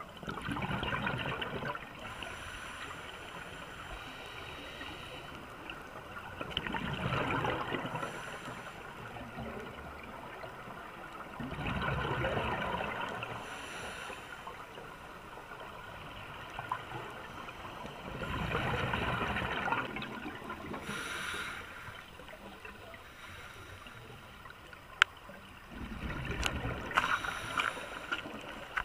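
Scuba diver breathing through a regulator underwater: the bubbles of each exhale gurgle in a loud burst about every six seconds, five times, with a faint hiss of the regulator on each inhale in between. A single sharp click comes about 25 seconds in.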